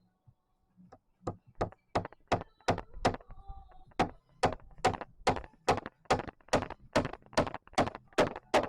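Hammer blows on wood, a steady run of about twenty strikes at roughly three a second that grow louder: the rhythm of a nail being driven into a board.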